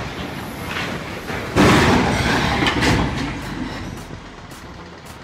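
Truck-mounted mobile crane toppling over into an excavation pit: a sudden heavy crash about one and a half seconds in, then crashing and rumbling that dies away over the next couple of seconds.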